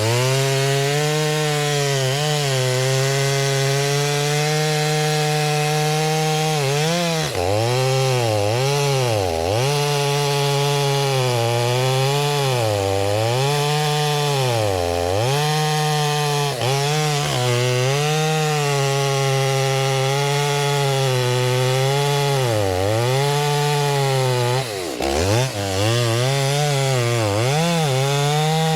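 Stihl MS 390 two-stroke chainsaw at full throttle bucking a red oak log. Its revs dip and recover again and again as the chain bites into the wood and bogs under load, with a deeper dip about 25 seconds in.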